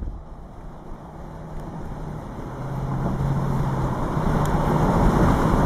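Vehicle engine hum and road noise that grow steadily louder, with a low steady hum that drops in pitch partway through and later rises again.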